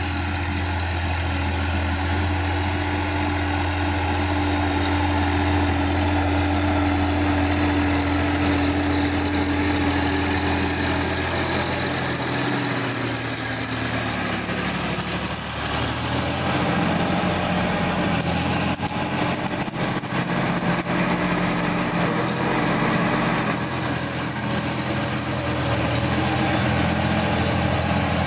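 Sonalika DI-50 RX tractor's diesel engine running steadily while pulling a rotary tiller through the soil. It comes close and passes, and its low drone shifts in pitch about halfway through.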